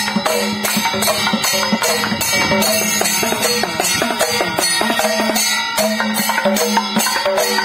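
Traditional Kerala temple music: drums and hand cymbals beating a steady rhythm, with a wavering melody over a held drone.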